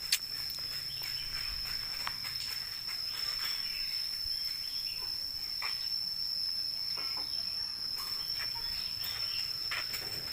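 A steady, high-pitched insect drone: one unbroken tone that does not waver. A single sharp click right at the start, and a few faint knocks.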